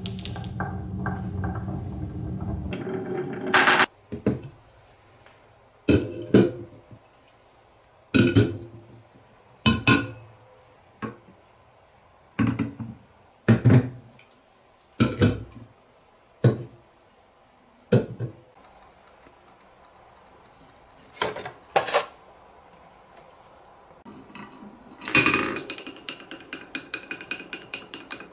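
Marbles rolling and clinking down a marble run built on cans. First a rumbling roll for about three seconds, then a string of separate sharp clinks and knocks a second or two apart, and a fast rattle of clicks with a ringing tone near the end.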